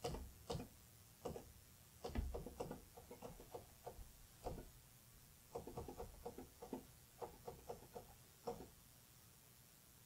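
Keys of a Stenograph Luminex II stenotype machine being pressed in chords, set to a deeper key stroke: soft clicks and taps in quick uneven runs with short pauses between.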